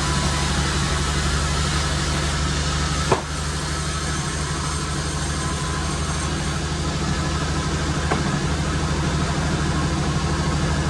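Sawmill machinery running steadily, with a sharp knock about three seconds in and a fainter click about eight seconds in.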